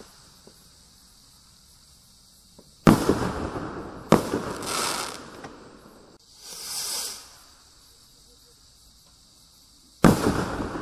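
Cosmic Fireworks Space Viper rockets. About three seconds in, a rocket bursts with a sudden bang, followed by crackling and a second sharp report. Some six seconds in, the next rocket climbs with a hissing whoosh lasting about a second, then bursts with another bang near the end, crackling as its stars spread.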